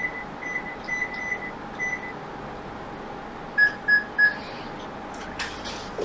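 Short high-pitched electronic beeps: a few irregular pips in the first two seconds, then three quick beeps a little lower in pitch about halfway through, over a faint steady hum.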